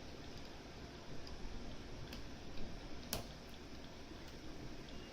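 Faint metallic ticks from picking tools made of windshield wiper stock working the discs of a Mosler M5700 safe deposit box lock, with one sharper click about three seconds in.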